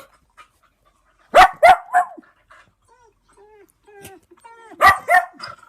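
Recorded dog-barking sound effect played back: three quick barks about a second and a half in and two more near the end, with short falling whines between them.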